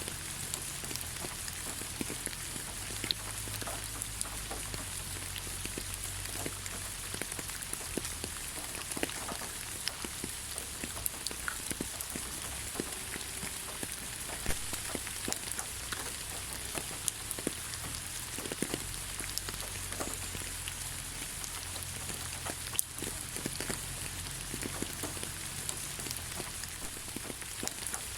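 Steady rain falling on the ground: an even hiss with many scattered individual drop impacts and a faint low rumble.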